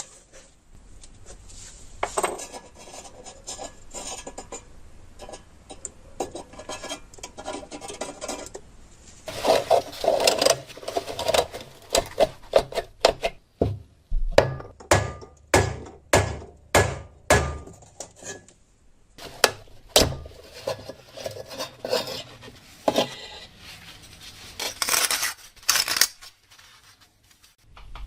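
Hand work on a rusted metal oil lamp: scraping and rubbing of metal, with a run of sharp knocks or taps, about two a second, in the middle.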